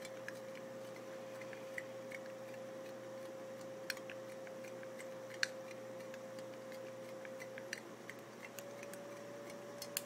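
Metal lid of a Copenhagen snuff can being flexed back and forth in the hands, giving scattered small clicks and cracks, the sharpest about halfway through, over a faint steady hum. The cracking is the lid's edges giving out as the metal is worked.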